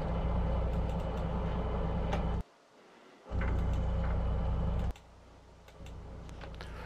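Fishing boat's engine running with a steady low hum, with faint clicks on top. The hum cuts out suddenly about two and a half seconds in, returns a second later, and drops to a fainter hum near the five-second mark.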